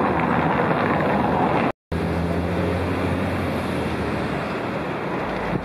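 Car engines running, with wind rumbling on the microphone; the sound stops dead for a moment about two seconds in and then carries on.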